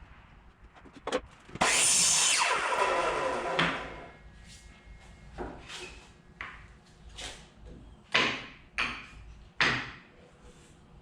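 Power saw cutting through a wooden board for about a second, then the blade whining down in pitch as the motor spins down. A few sharp wooden knocks follow, three loud ones near the end, as cut pieces are handled.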